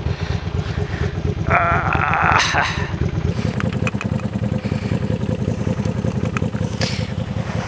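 Motorcycle engine idling steadily on choke after a cold start. About a second and a half in, a brief buzzy sound lasting about a second rises over it.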